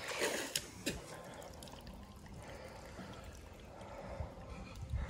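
Lake water splashing and trickling around a swimmer, with a few sharper splashes in the first second.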